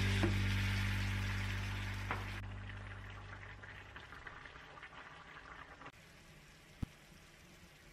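Background music fading out over the first few seconds, over the faint sizzle and bubbling of a stir-fry of beef and vegetables simmering in a frying pan with a splash of water, then a pot boiling on the hob. Near the end there is a single sharp tap.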